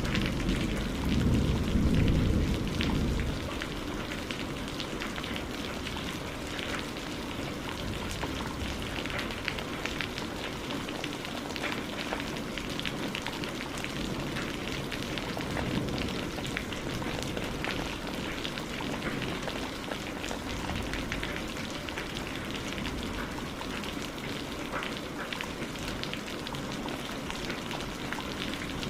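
Steady rain falling, with many small drops pattering. A low rumble of thunder dies away over the first three seconds.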